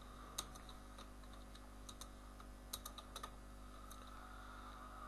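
Faint computer keyboard typing: short, irregular runs of key clicks over a steady low electrical hum.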